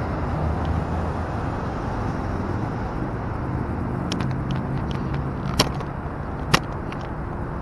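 Cars passing on a busy road, a steady low rumble of traffic. Two sharp clicks about a second apart are heard past halfway.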